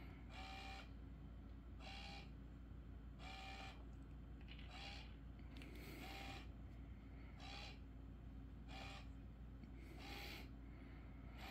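Small motor of an automatic laser cat toy whirring in short, evenly spaced bursts, about one every second and a half, as it swings the laser dot around. A steady low hum lies underneath.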